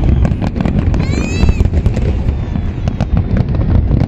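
Aerial fireworks display going off in a dense barrage: rapid overlapping bangs and crackles over a continuous low rumble. A brief high-pitched tone rises and falls about a second in.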